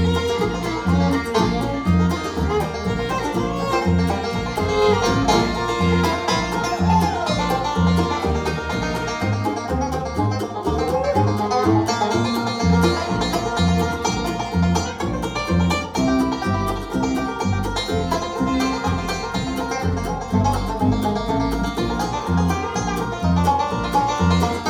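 A band playing an instrumental tune, over a steady bass beat of about two notes a second, with a few sliding melody notes.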